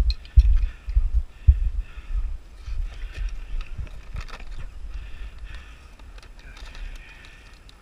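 Footsteps thudding through a head-mounted camera, about two to three a second at first, then fading to a softer low rumble.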